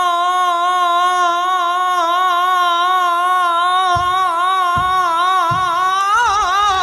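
A man holds one long, high sung note with a wavering vibrato, the drawn-out close of a Peking opera-style aria line, and breaks into a rising ornamented turn near the end. From about four seconds in, low thumps come roughly every three-quarters of a second.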